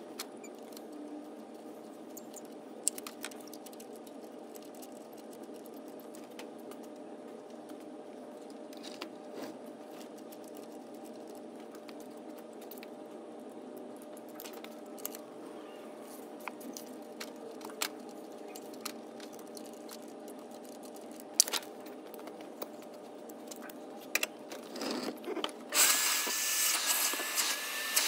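Steady shop hum with scattered clicks of hand tools on engine parts. Near the end a shop vacuum starts up, running with a loud rush and a wavering whine, its hose pushed into the engine's intake manifold ports.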